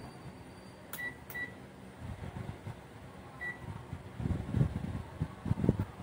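Digital multimeter beeping: two short high beeps with clicks about a second in and a third beep a couple of seconds later. Then rustling and knocks from test leads and wiring being handled.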